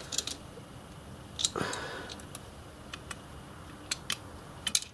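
Small metal hand tools working a screw and nut: scattered light clicks, with a louder click and a short scrape about a second and a half in, as an M3 stainless screw and its locking nut are nipped up on a steel latch clasp.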